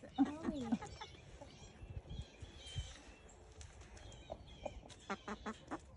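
Chickens clucking softly now and then, with a short pitched call near the start and a few quick clucks near the end.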